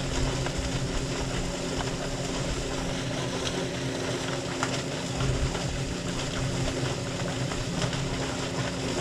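A machine running with a steady low hum, with faint clicks and scrapes of work on the table over it.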